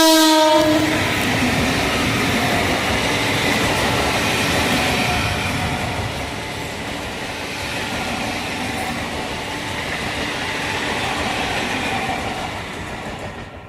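An Indian Railways train's horn cuts off about half a second in, then the train runs past with a loud, steady rumble of wheels on rails that fades near the end.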